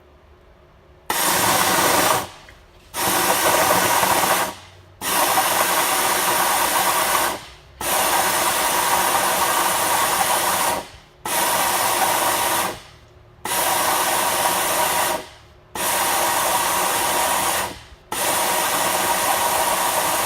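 Compressed air hissing in repeated bursts of a couple of seconds each with short breaks between, blown through the engine to force the last of the old oil out of the crankcase after draining.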